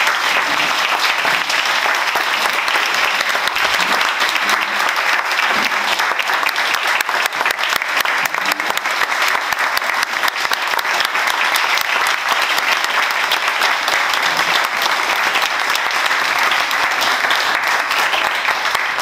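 Audience applauding steadily: many hands clapping together in a dense, even wash of claps.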